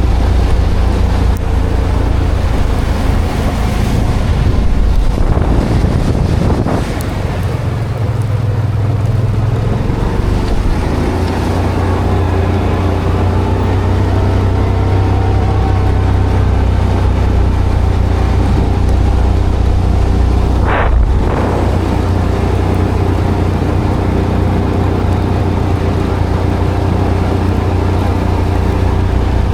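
An engine running steadily with a deep, even hum. A short knock comes about two-thirds of the way through.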